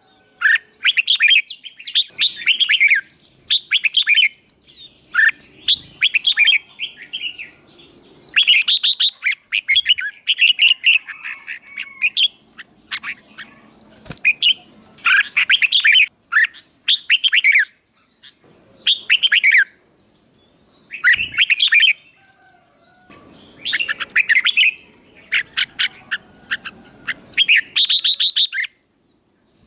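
Songbird singing in repeated short bursts of fast, loud chirping phrases with brief pauses between them.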